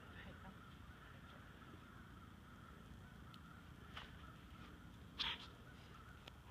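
Near silence: faint open-air background, broken about five seconds in by one short, harsh sound.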